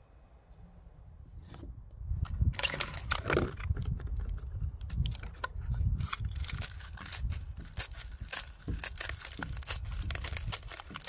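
Dried sunflower seeds being rubbed and pried out of a dried sunflower head by hand, a dense crackling and rattling of seeds and dry husk, with seeds dropping into a bowl. It starts about two seconds in, over a low rumble.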